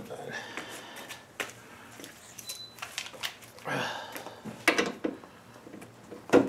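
Scattered clinks, knocks and rattles of tools and fittings being handled in a car's engine bay, with a sharper knock just before the end.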